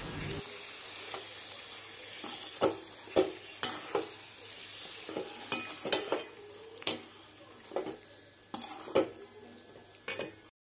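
Chicken pieces and ground masala sizzling in oil in a metal kadai while a perforated steel ladle stirs them. The ladle scrapes and clinks against the pan about once or twice a second, with short metallic knocks over the steady sizzle.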